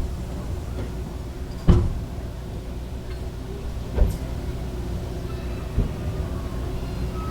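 Summer beach parking lot ambience: a steady low rumble with three sharp thuds, the loudest about a second and a half in, the others around four and six seconds.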